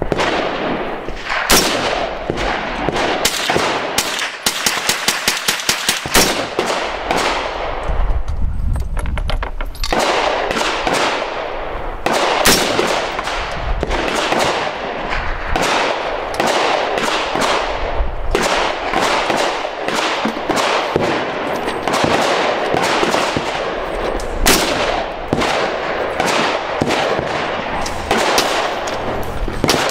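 Gunfire along a shooting range's firing line: many sharp, irregular shots, some overlapping, with a fast string of about six or seven shots a second around four to six seconds in.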